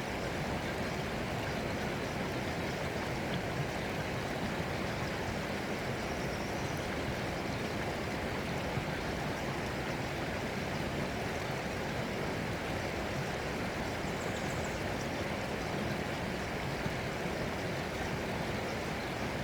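Steady flowing water, like a stream running, with an even rushing sound that does not change.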